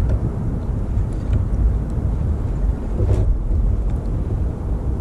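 Wind rumbling on the microphone over choppy sea water sloshing against a kayak's hull, with one brief sharper sound about three seconds in.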